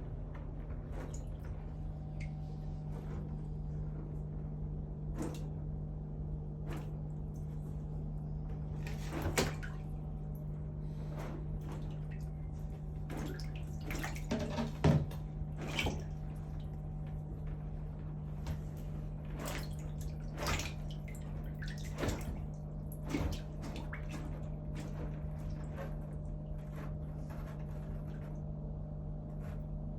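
Cuming's water monitor eating a rat: scattered wet clicks and knocks of feeding, the loudest about nine and fifteen seconds in, over a steady low hum.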